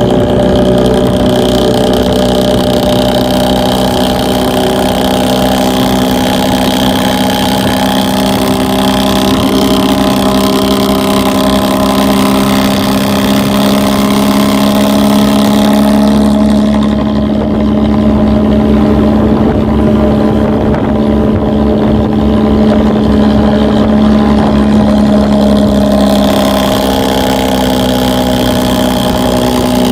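A bus's diesel engine and exhaust droning at steady revs: a deep, constant exhaust note. About halfway through, the high hiss falls away and the low rumble grows stronger, and the pitch shifts slightly near the end.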